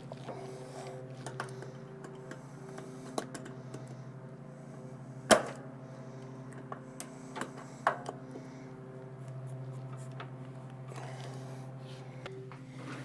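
Scattered metal clicks and knocks as the repaired wheel is fitted back onto the lawn tractor, with one sharp knock a little after five seconds in and another near eight seconds, over a steady low hum.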